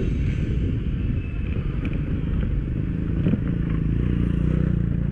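Motorcycle engine running at low speed on a rough dirt road, with a few short knocks and clatters from the bike over the uneven surface. The engine note holds steadier in the second half.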